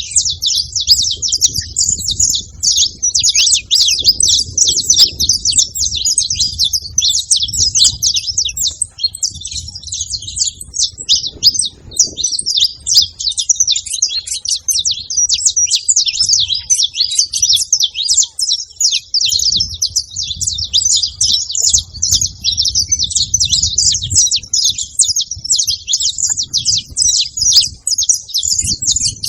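A group of saffron finches (canários-da-terra) singing and chirping together in a dense, continuous chatter of high notes, with a low rumble underneath at times.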